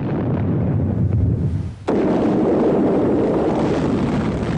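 Explosion sounds: a deep rumble that starts abruptly, then about two seconds in a louder blast cuts in suddenly and keeps rumbling, slowly fading.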